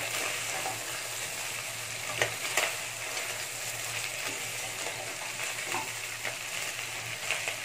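Chicken pieces sizzling in a non-stick kadai now that the cooking water has fully dried off, the meat starting to catch on the pan. A steel spoon stirs and scrapes through them, knocking against the pan a couple of times a little over two seconds in and once near the end.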